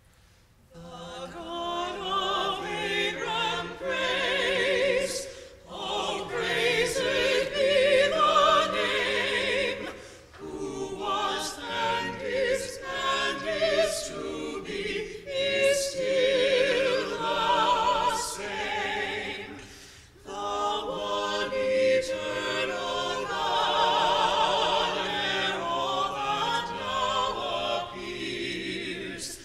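Small mixed choir of men and women singing in parts, starting about a second in, in long phrases with brief breaks between them.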